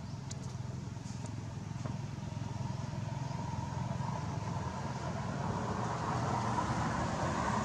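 A motor vehicle on a road: a steady low engine drone with a hiss that grows louder toward the end as it approaches.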